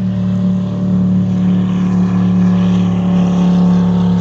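Motorboat engine running loud at a steady speed, an even drone with no change in pitch.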